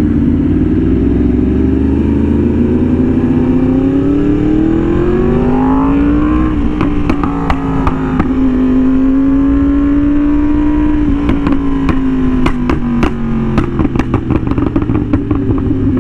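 Yamaha R1M's crossplane inline-four through a slip-on exhaust, accelerating with the engine note rising steadily for about six seconds, then holding a steady cruise. Later the note eases off slightly and the exhaust gives a quick run of sharp pops.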